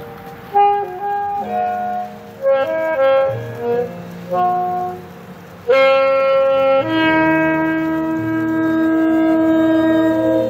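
A wind instrument playing a slow melody in short phrases, then a long held note from about six seconds in over low sustained accompanying notes.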